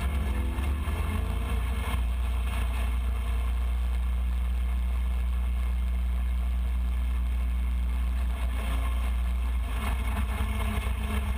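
Go-kart engine running steadily while driving through snow, with a heavy low rumble of wind on the kart-mounted camera's microphone.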